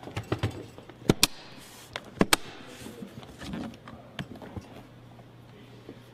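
Latches of a hard plastic equipment case snapping open: two pairs of sharp clicks about a second apart, then softer knocks of the case being handled, over a steady low hum.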